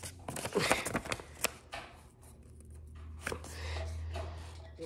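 A sheet of paper rustling and crinkling as it is folded and creased by hand, fingers pressing and sliding along the fold, with a sharp click about a second and a half in. A low steady hum runs underneath.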